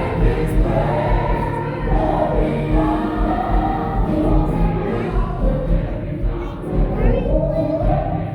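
Gospel choir singing over a steady pulsing bass beat.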